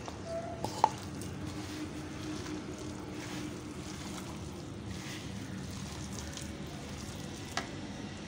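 Hand squishing and kneading a damp gram-flour pakora mixture of sliced onions and greens in a bowl, with soft squelching rustles over a steady low background hum. A single sharp click comes a little under a second in.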